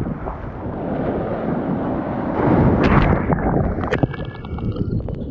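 Breaking surf wave rushing over and around a sea kayak, with whitewater spraying the camera and wind buffeting the microphone. The rush swells about halfway through, then thins toward the end with a few sharp clicks.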